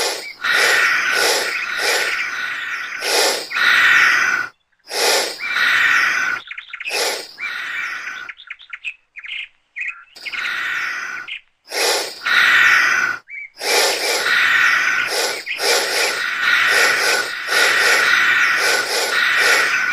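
Bird-like chirping: runs of rapid, repeated chirps, stopping briefly several times, including a longer gap around the middle.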